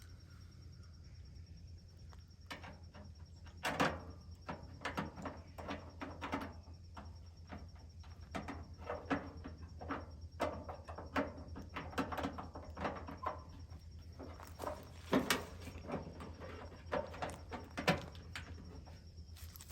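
Irregular metal clicks and knocks of hand work on a truck door's lock and latch mechanism, parts and tools tapping and snapping together, with a few louder knocks among them.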